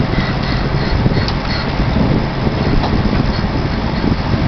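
Heavy recovery vehicle's engine running steadily under load as cables haul an overturned tractor-trailer upright, with a loud, rough rushing noise over it.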